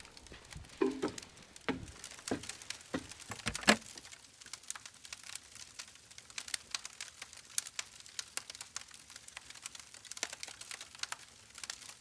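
Wood campfire crackling: a steady run of sharp pops and snaps from burning split logs and bark, with a few louder pops in the first four seconds.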